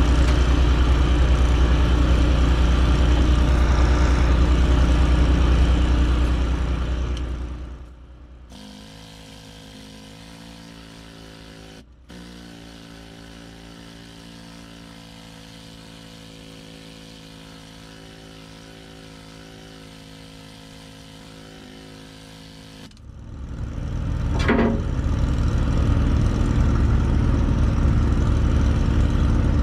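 An engine-driven welding machine runs at full speed, drops to a steady idle about eight seconds in, then revs back up to full speed near 23 seconds. This is the welder's auto-idle following the welding passes: revving up when an arc is struck and idling down when it stops.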